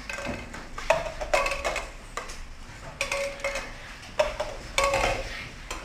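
Plastic cups being set down on a tabletop game board in quick turns: about ten light, irregular clacks, each with a brief ring.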